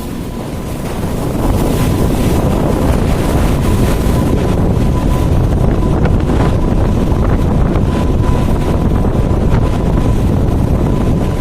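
Loud, steady wind buffeting the microphone over a deep rumble, with a faint steady high tone running through it.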